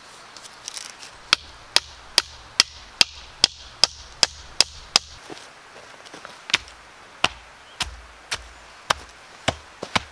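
Repeated sharp blows of a hand tool striking wood: a quick, even run of about ten strikes, then a pause and slower, spaced strikes from about six and a half seconds in.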